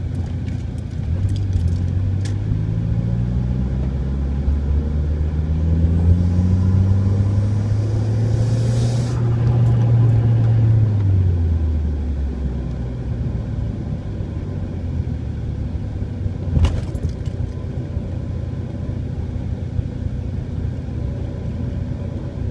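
Dodge Neon SRT-4 on the move with a humming, whining sound of several pitches at once over a steady road rumble. The hum rises in pitch as the car gathers speed over several seconds, holds, then drops away as it slows. The owner suspects a bad wheel bearing, heard when the wheel is turned off centre. A single sharp click comes about 17 seconds in.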